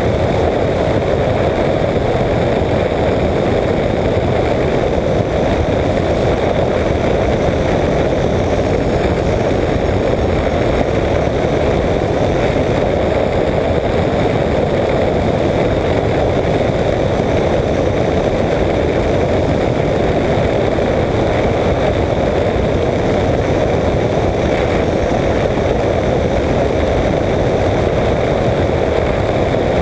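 Apollo Jet Star flex-wing microlight trike in cruising flight, its engine and pusher propeller running at a steady drone mixed with rushing airflow on the exposed camera. The level does not change throughout.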